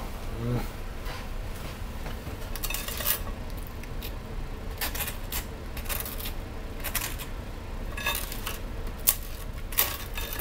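A clam knife spreading butter on toast: irregular scraping strokes across the bread, with the odd clink of the blade on the glass plate.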